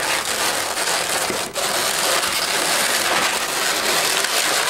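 Latex modelling balloons squeaking and rubbing against each other as they are twisted and locked together. A continuous dense crackle of rubber on rubber, with a brief break about a second and a half in.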